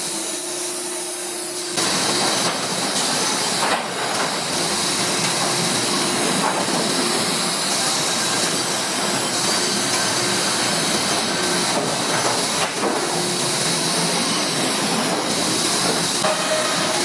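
Sawmill machinery running with a steady, loud hissing noise that steps up in loudness about two seconds in, over a faint steady hum at the start.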